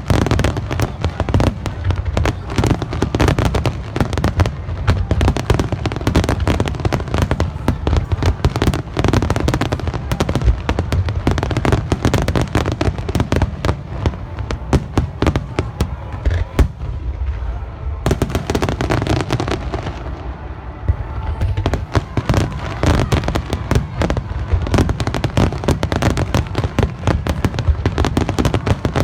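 Aerial fireworks shells bursting in rapid, overlapping volleys, a dense run of booms and crackles that thins out briefly about two-thirds of the way through before building up again.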